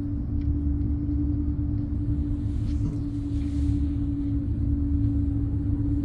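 Steady low rumble with a constant, unchanging hum, heard from inside an aerial cable car cabin as it travels along its rope.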